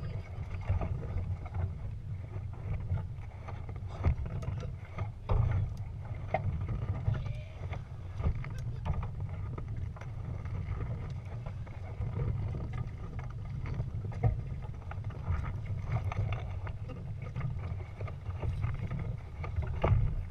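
Wind buffeting the microphone of a GoPro mounted on a Prindle 16 catamaran under sail: a steady low rumble that swells and eases with the gusts, with scattered sharp knocks from the boat.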